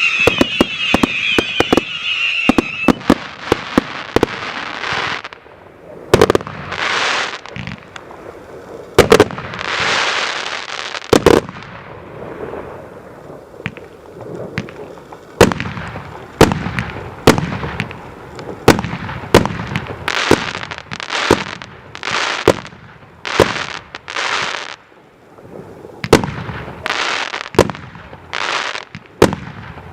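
JF VIP1 'Королевский' fireworks battery firing: whistles for the first few seconds, then a steady string of sharp bangs, many trailing off in a hissing crackle, about one a second.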